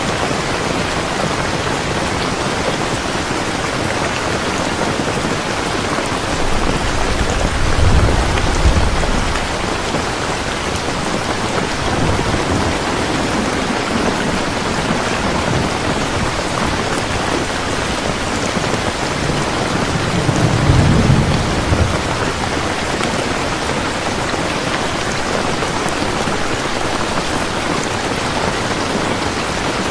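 Heavy rain falling steadily, with deep thunder rumbling twice, about a third of the way in and again past the middle.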